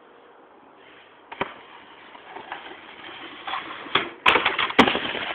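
Snowboard sliding over snow, the scraping hiss growing louder as it comes closer, then several sharp knocks close together about four seconds in as the board hits a metal shopping cart.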